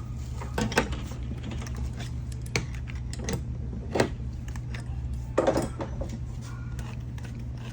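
Scattered clicks and knocks of metal and plastic parts of a backflow preventer's check valve being handled and set down during disassembly, the loudest a cluster about five and a half seconds in, over a steady low hum.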